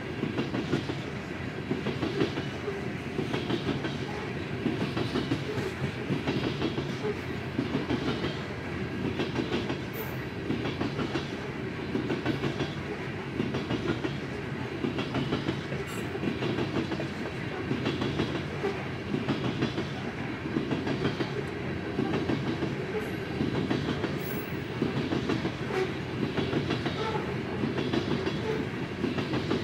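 BNSF coal train's cars rolling past over a level crossing. A steady rumble carries a clickety-clack from the wheels striking the rail joints, repeating at an even pace throughout.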